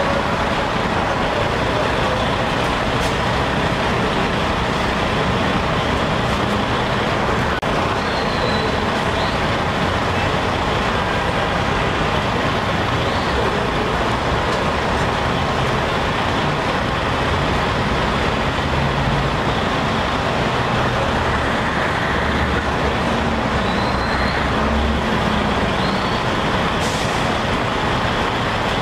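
Steady din of heavy diesel fire apparatus engines running at the fireground, mixed with city street traffic. A few faint, short, high chirps rise over it about a third of the way in and again near the end.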